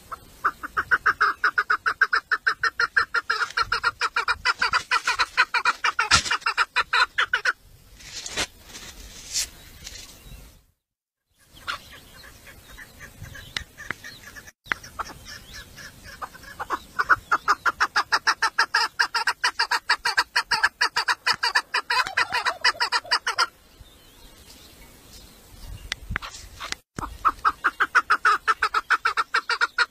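Tame female chukar partridge (a decoy hen) calling: long runs of rapid, evenly repeated clucking notes, several a second, in three main bouts with quieter calling between.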